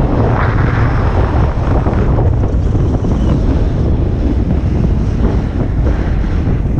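Loud wind buffeting on the microphone while riding fast downhill, with the hiss and scrape of edges carving the snow underneath.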